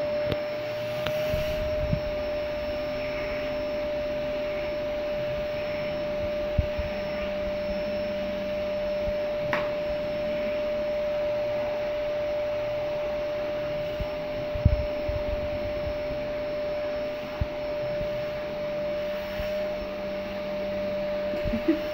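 LG canister vacuum cleaner running steadily with a constant high whine, its floor brush being drawn over a cat's fur. A few brief knocks along the way, the loudest about two-thirds through.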